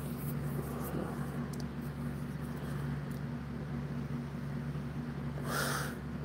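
Steady low mechanical hum of a room appliance, with a short breathy puff near the end.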